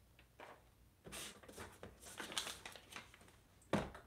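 Soft rustling of paper being handled at a desk, with a short sharp knock near the end.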